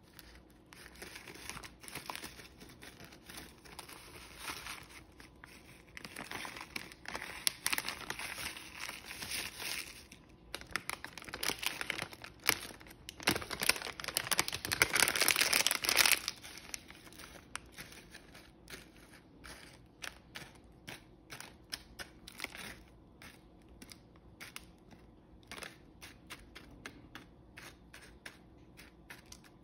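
Plastic bag crinkling and rustling as crumb topping is shaken out of it onto a pie, loudest for a few seconds in the middle. After that come quieter, rapid scratchy ticks as the topping is spread and pressed down with plastic in the foil pie pan.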